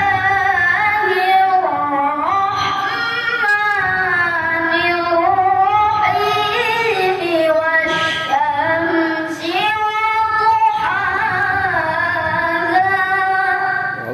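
A boy qari chanting Quran recitation in the melodic tilawah style into a microphone over a PA: long held notes with ornamented pitch runs, and short pauses for breath between phrases.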